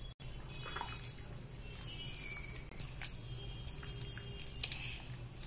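Raw chicken wings being squished and turned by hand in a wet egg-and-flour batter in a steel bowl: soft, scattered squelching and patting over a steady low hum.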